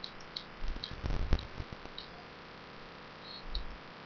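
Faint room tone with a scattering of small, sharp clicks and a few soft low thumps about a second in, and another soft thump near the end.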